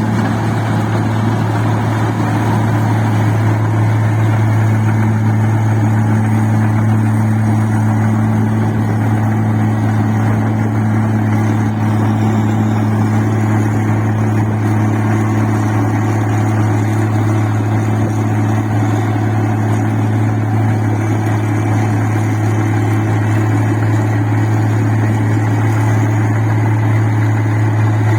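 An engine-driven rice-processing machine running steadily, with a strong low, even hum and a dense mechanical clatter that neither rises nor falls.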